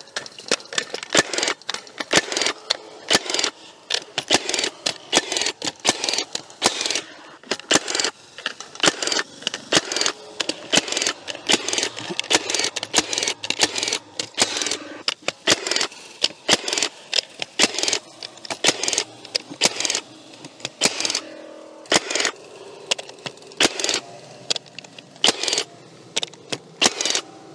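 Milwaukee M18 FUEL FFUS cordless fencing stapler firing staples over stock-fence wire into wooden posts: a long run of sharp shots, often about one a second and sometimes closer together, with a short lull about two-thirds of the way through.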